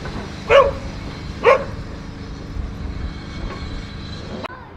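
A dog barks twice, about a second apart, over the low rumble of a train.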